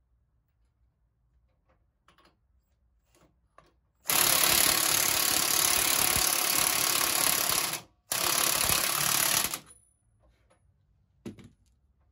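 Cordless impact driver running a socket on the axle nut of a go-kart's rear wheel, in two bursts: one of nearly four seconds, then after a brief stop a shorter one of about a second and a half. A single light knock follows near the end.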